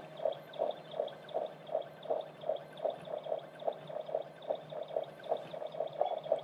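BotFactory Squink PCB printer running a print job, its inkjet printhead carriage moving over the board: a regular pulsing about three times a second over a steady low hum.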